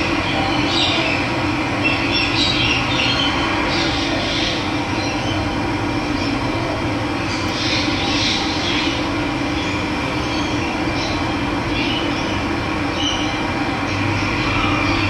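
Steady rush of running water, with birds chirping now and then above it.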